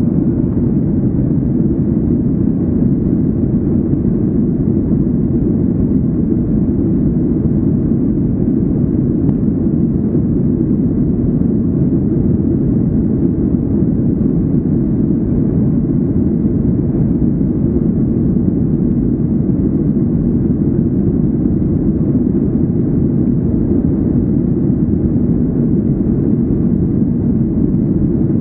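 Steady, deep, muffled cabin noise of a Boeing 737-800 in flight: its CFM56-7B turbofan engines and the airflow over the fuselage heard from inside the passenger cabin.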